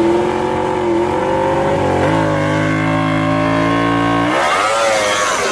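Yamaha MotoGP racing motorcycle's engine running with a steady note, which changes about two seconds in and rises in a short rev near the end.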